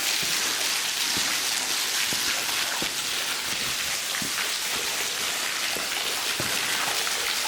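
Waterfall splashing down through a hole in a rock overhang, heard from close by: a steady rushing hiss with scattered drips pattering.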